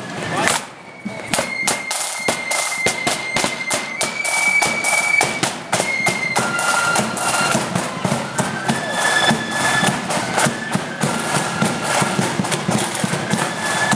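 Marching flute band playing: flutes carry a melody in long held notes over rapid, crisp side-drum strokes and a bass drum.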